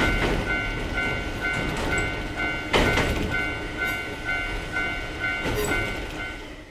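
Japanese level-crossing warning bell ringing its repeating "kan kan" clang, about two strikes a second, over the rumble and clatter of a passing train, with one loud sharp clank about three seconds in.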